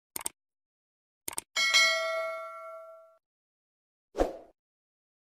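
Subscribe-button animation sound effects: a short mouse click, a second click about a second in, then at once a bright bell ding that rings out and fades over about a second and a half, and a short soft thump near the end.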